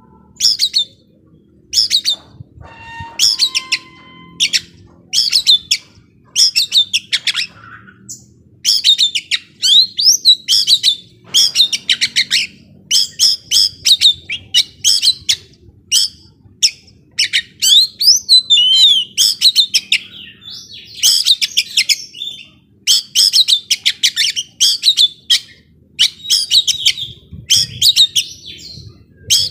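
Young wild-caught Oriental magpie-robin (kacer) singing hard and without let-up: short, rapid phrases of high chattering notes and whistles, one after another with brief pauses between them.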